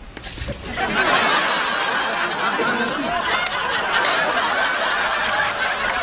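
Sitcom studio audience laughing. The crowd laugh swells about a second in and carries on steadily.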